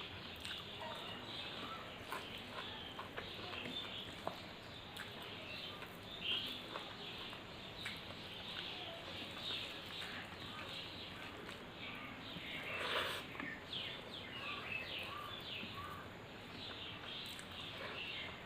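Birds chirping in the background, many short calls, with scattered small clicks and a brief louder rustling sound about thirteen seconds in.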